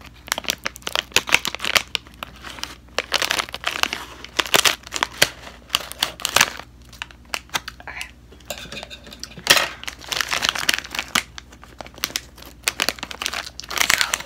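Crinkling of a plastic Ritz snack bag being cut open with scissors and then squeezed and handled as fingers reach inside, in irregular crackly bursts.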